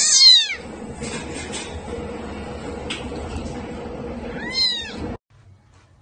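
A very young kitten meowing twice, high-pitched: a loud cry at the start and a second, similar cry about four and a half seconds in.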